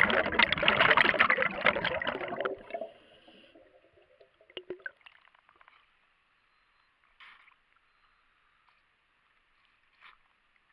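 Underwater rush of scuba exhaust bubbles streaming past the camera housing, loud for the first two or three seconds, then fading to a few faint clicks and short faint bursts.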